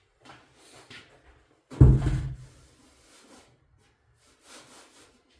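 Handling noises of rubbing and scraping, with one heavy, loud thump about two seconds in and softer knocks near the end.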